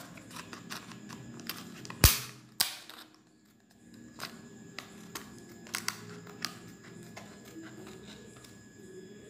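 Clear plastic container lid being handled and cut: scattered sharp plastic clicks and snaps, the loudest a single crack about two seconds in.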